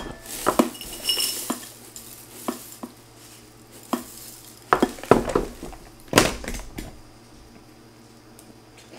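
Dry cereal poured from a plastic container into a bowl, and a spoon clinking against the bowl: a scatter of separate clinks and knocks over a low steady hum.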